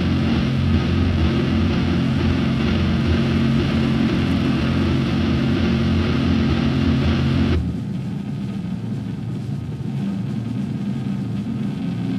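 Heavily distorted electric guitar through a Mesa stack, holding one sustained doom chord. After about seven and a half seconds the bright part of the chord cuts off suddenly, leaving a lower droning hum from the amps.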